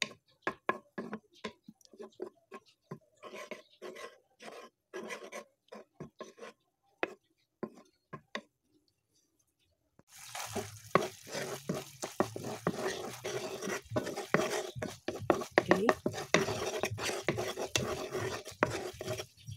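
Wooden spatula scraping and tapping in short strokes against a nonstick frying pan as canned corned beef is stirred in oil. After a brief silent gap about halfway, the stirring resumes over a steady sizzle of frying.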